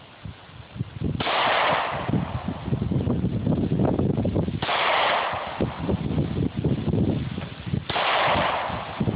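Taurus PT111 9mm pistol firing three single shots, about three seconds apart, each blast smeared and drawn out, with low rumbling noise between shots.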